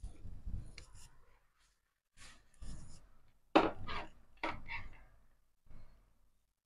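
Hands handling and twisting insulated electrical wires at a joint against a plywood board: irregular rustling and scraping in several bursts, the sharpest about three and a half seconds in.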